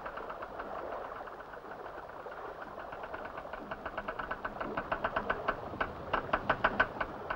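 Pontoon winch machinery running: a rapid, regular mechanical clatter of about six to seven knocks a second, growing louder about halfway through.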